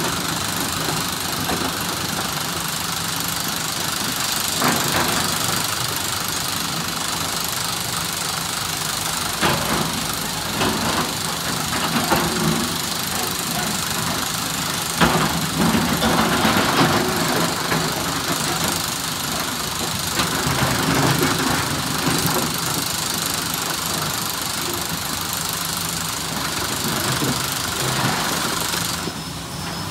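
A SANY SY365H PRO hydraulic excavator's diesel engine runs steadily while loading andesite rock, with a few sharp knocks scattered through it.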